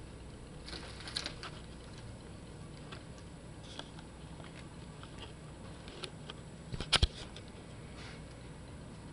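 Scattered light clicks and taps over a low steady background, with a quick cluster of sharp knocks about seven seconds in.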